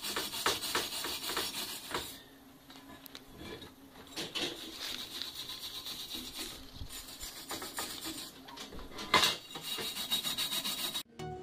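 Hand tool rasping back and forth on steel expanded-metal mesh: a run of quick, uneven strokes, with a louder one about nine seconds in.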